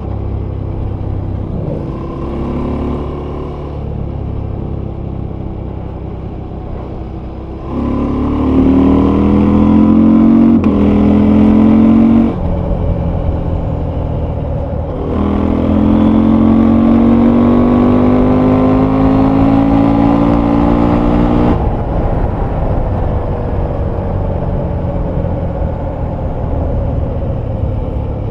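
Husqvarna Norden 901's 889 cc parallel-twin engine and exhaust on the move: steady part-throttle running, then two hard accelerations with the engine pitch climbing. The first acceleration is broken briefly by a quick upshift. Each ends abruptly as the throttle shuts, and the engine then runs down with a slowly falling pitch near the end.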